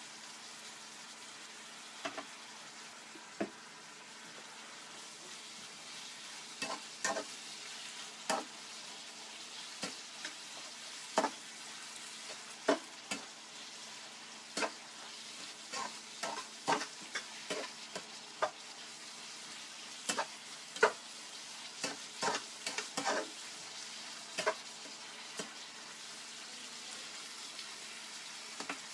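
Chopped tempe and shellfish sizzling in a frying pan while a metal spatula stirs them, with irregular sharp clicks and scrapes of the spatula against the pan over a steady sizzle.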